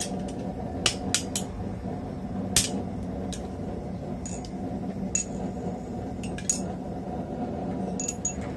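A few sharp, irregular metal clinks and taps as tongs and a hot steel bar knock against a steel swage block, some with a brief high ring, over a steady low background hum.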